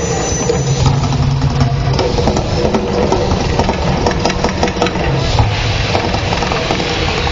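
The Mirage volcano attraction's eruption effects: a loud, steady rumble with a constant low hum and scattered crackling.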